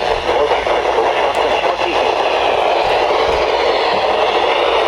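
Steady radio static: an even hiss of noise from a radio receiver tuned off a clear signal.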